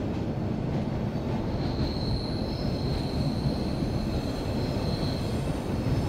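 Subway train running, heard from inside the car: a loud steady rumble. A thin, steady high-pitched squeal comes in about a second and a half in and holds.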